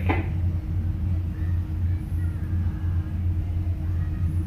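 Towboat's diesel engines running steadily, heard as a low, even drone from inside the wheelhouse, with a brief click right at the start.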